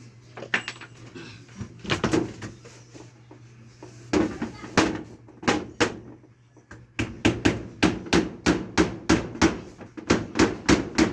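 Hammer blows, a few scattered strikes at first, then a steady run of about three strikes a second from about seven seconds in, as in driving nails.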